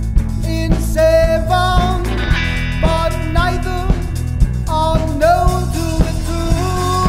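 Rock band playing: guitar and drum kit under a melodic lead line that slides between held notes.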